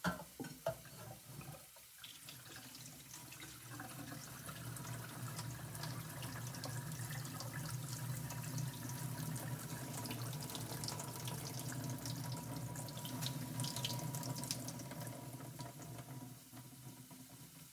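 Water running from a kitchen tap into a sink, steady, with a few short knocks in the first couple of seconds.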